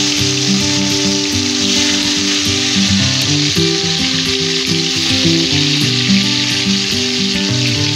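Rohu fish pieces frying in hot oil in a kadai, a steady sizzle throughout, with background music playing over it.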